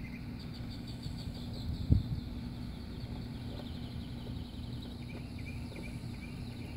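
Outdoor ambience: rapid, repeated high chirping trills over a steady low hum, with a single short thump about two seconds in.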